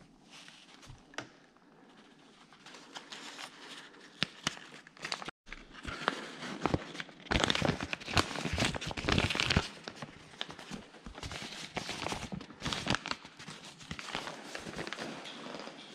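A sheet of printed paper crinkling and rustling as gloved hands handle and crumple it, with scattered sharp crackles, loudest for a couple of seconds around the middle.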